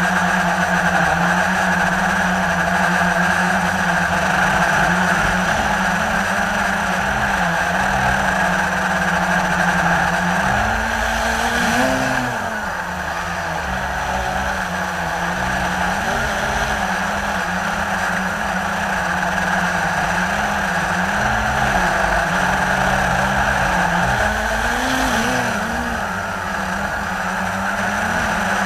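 Blade 350 QX3 quadcopter's electric motors and propellers whirring steadily, heard close up from the aircraft itself. The pitch wavers down and up as the throttle changes, about eleven seconds in and again near the end, over a low rumble.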